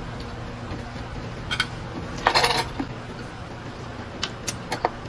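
Eating sounds at a table: fingers and fingernails picking fish flesh off a ceramic plate, making small clicks and taps, with a louder brief clatter a little past two seconds in. A steady low hum sits underneath.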